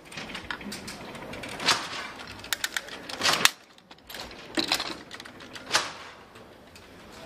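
Babbage's Difference Engine running: its metal mechanism clacking and clicking, with sharp knocks every second or so and a quick run of clicks leading into the loudest knock about three and a half seconds in.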